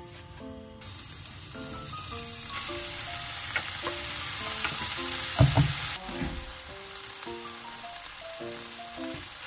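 Pork jowl fried rice sizzling in a frying pan. The sizzle grows louder about two and a half seconds in and eases off near six seconds, with a sharp knock around five and a half seconds. Light background music with a melody plays throughout.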